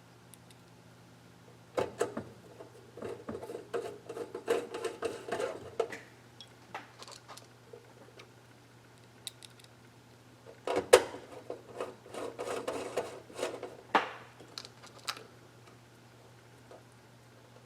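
Small hard parts and tools handled on a workbench: clicks and clattering in two bursts, one a couple of seconds in and one about eleven seconds in, over a steady low hum.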